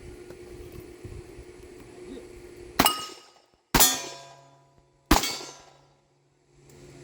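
Four .38 Special revolver shots from a Smith & Wesson 686-5 Power Port, the first about three seconds in and the others one to two seconds apart, the last at the very end; each is followed by the ringing clang of a hit steel target plate.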